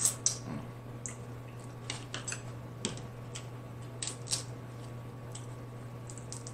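Crab legs being cracked and picked apart by hand: scattered short cracks and clicks of shell, with a wet mouth sound at the very start as the meat is eaten. A steady low hum runs underneath.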